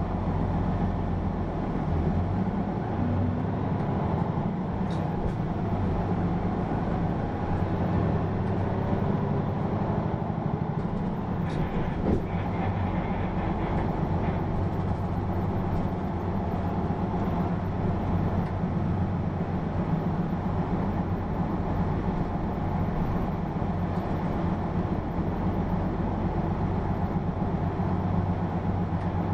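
Hino PA-KR234J1 city bus's diesel engine running steadily as the bus drives, heard from inside the cabin, with a single short click about twelve seconds in.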